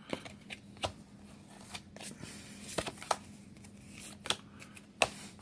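Magic: The Gathering cards being handled and shuffled by hand, a scatter of crisp rustles and flicks.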